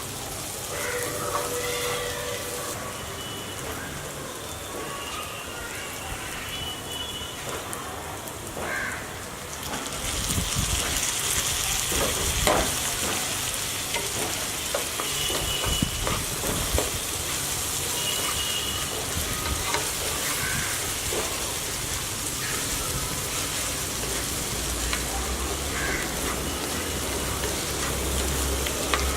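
Pepper chicken frying and sizzling in a pan, growing louder about ten seconds in, with a few short knocks along the way.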